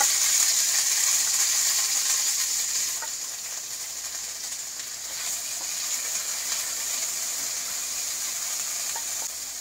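Thai red curry paste frying in hot coconut oil in a wok while it is stirred, a steady sizzling hiss that eases off about three seconds in.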